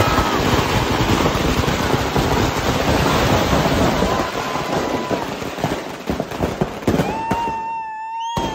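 Firecrackers packed inside a burning Ravan effigy going off in a dense, rapid barrage of bangs and crackling, thinning out after about seven seconds. A steady high whistle sounds near the end.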